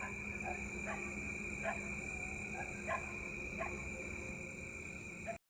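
A steady high-pitched background drone with faint short sounds every half second to a second. It cuts off abruptly near the end.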